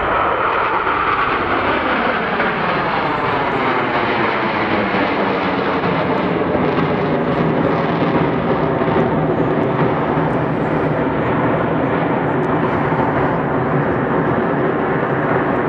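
Jet noise from a formation of Aermacchi MB-339 trainers, each with a single turbojet, flying low overhead. The sound comes up fast at the start, then holds loud and steady with a whooshing sweep that falls in pitch as the jets pass and draw away.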